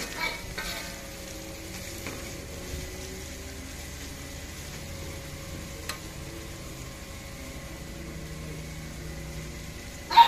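Spice paste sizzling steadily as it fries in hot oil in a wok, stirred with a metal turner, with a few light clinks in the first second. A brief, sharp, loud sound comes near the end.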